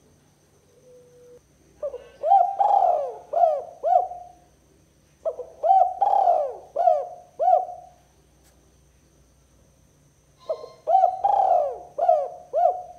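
Spotted dove (tekukur) cooing: three phrases, each a quick run of about five coos, a few seconds apart.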